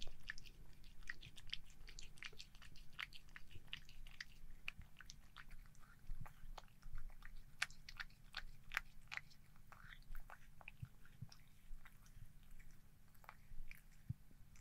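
A cat eating wet cat food from a ceramic bowl: quiet, wet chewing and licking, a run of small clicks and smacks several times a second.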